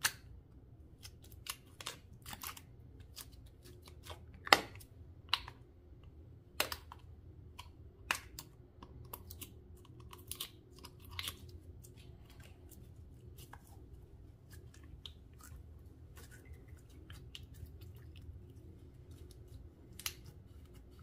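Slime being worked by hand: irregular sticky clicks and small pops. The loudest comes about four and a half seconds in.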